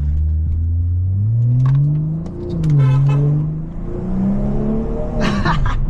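Straight-piped BMW 540i's B58 turbocharged inline-six accelerating hard, its pitch climbing, dropping at an upshift about two seconds in and again near four seconds, then climbing once more.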